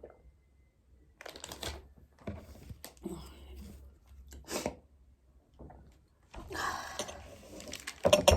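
Rummaging through things while searching for sweets: irregular bursts of rustling and handling noises, busiest near the end.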